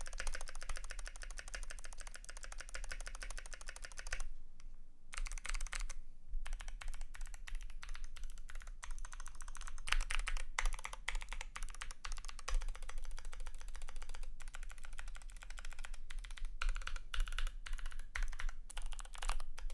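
Typing on a Glorious GMMK PRO mechanical keyboard with lubed Kailh Speed Bronze clicky switches, an aluminium plate and PBT keycaps: fast, dense key clicks that pause for about a second around four seconds in.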